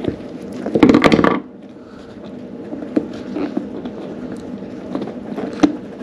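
Pliers clamping onto and working a plastic BOA lacing dial on a snowboard boot: a burst of clicking and scraping about a second in, then a few scattered small clicks and taps.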